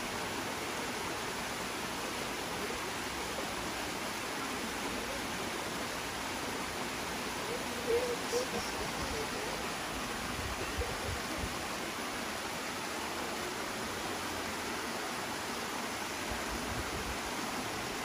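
Waterfall pouring into a rock pool: a steady, even rush of water. A faint voice is heard briefly about eight seconds in.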